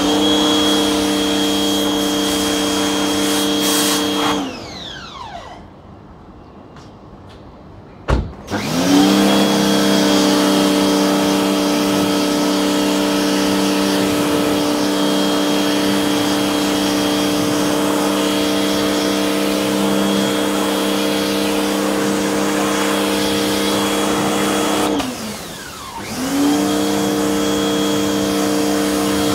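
Electric pressure washer motor running with a steady hum and hiss of spray. It cuts out and winds down about four seconds in, starts up again after a click about four seconds later, then stops and restarts near the end, as the spray-gun trigger is let go and squeezed again.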